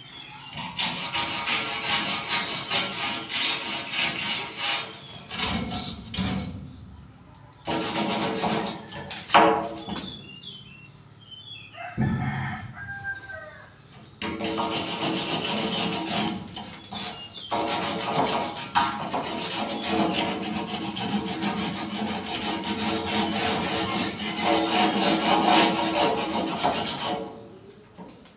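Rusty steel roof trusses being scrubbed by hand: fast rasping back-and-forth strokes in long runs, broken by a few short pauses. A rooster crows about halfway through.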